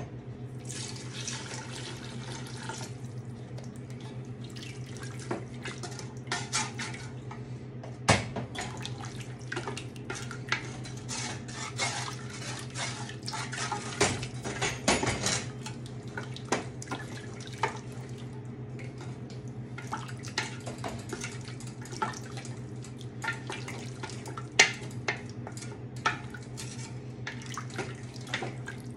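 Broth poured into a pot of gumbo for the first couple of seconds, then a wooden spoon stirring the thick stew in an enamelled pot, scraping and knocking against its sides with scattered sharp clicks.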